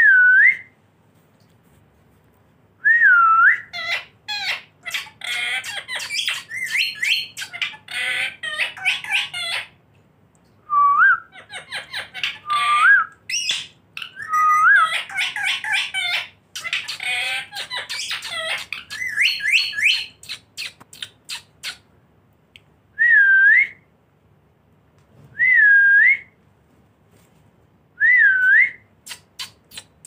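Rose-ringed (ringneck) parakeets calling: loud, shrill whistled calls that dip and rise in pitch, with long stretches of rapid harsh chattering in the middle. Near the end come single calls every two to three seconds, between short runs of quick clicks.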